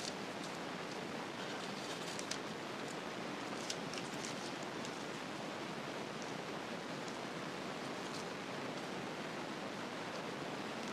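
A steady hiss of background noise, with a few faint clicks and rustles in the first half.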